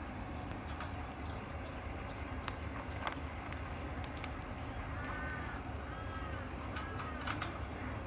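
A bird's short soft calls: three arched notes about a second apart in the second half, over a steady low hum, with scattered sharp clicks.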